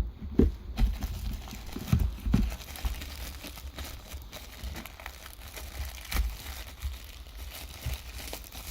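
Packaging crinkling and rustling as accessories are unwrapped from a phone box, with several sharp handling knocks and low thumps.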